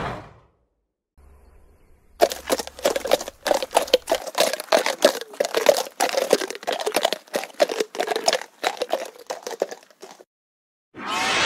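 Horse chewing feed, a dense, irregular crunching and crackling that starts about two seconds in and stops near the end.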